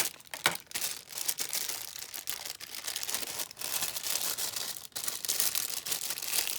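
Plastic packaging crinkling and tearing as it is pulled open by hand: a dense, continuous run of small crackles and clicks.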